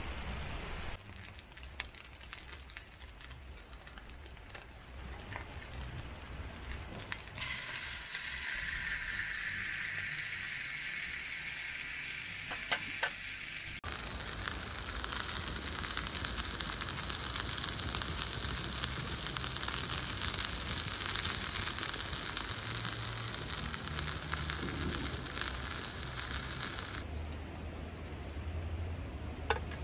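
Steak sizzling over an open wood campfire, a dense hiss with a few crackles. The sizzle changes abruptly between edited shots: fainter at first, louder and fuller through the middle, then cut off sharply near the end.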